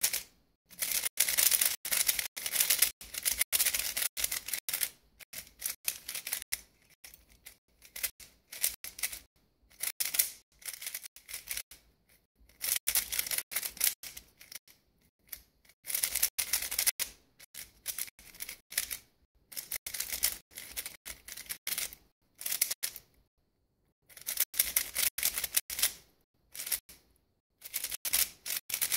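X-Man Tornado 3x3 speed cube being turned fast in its first turns out of the box: rapid, light plastic clicking and clacking of the layers, in bursts of a few seconds with short pauses between.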